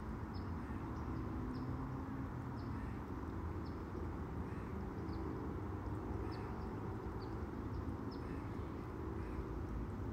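A small bird chirping: short, high, downward-sliding chirps repeating at irregular intervals, about one a second, over a steady low outdoor rumble.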